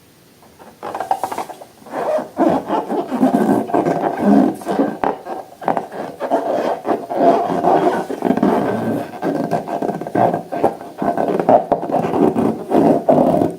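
Slime being worked by hand, with dense, irregular squishing, rubbing and small crackles starting about a second in.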